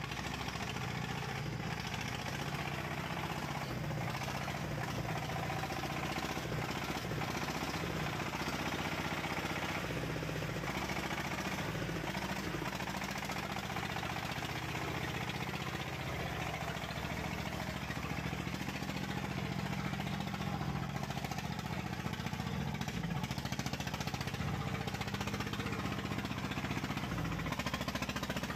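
A vehicle engine running steadily, its low hum holding even throughout.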